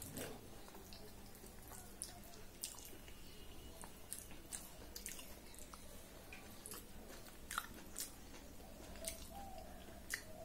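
Close-miked chewing and wet mouth clicks of a person eating soft khichdi by hand, with irregular short smacks throughout.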